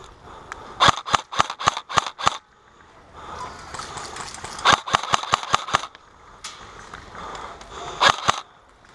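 Airsoft rifle firing three strings of rapid shots, sharp cracks about five a second: one string of about eight shots a second in, another near the middle, and a short string of three near the end.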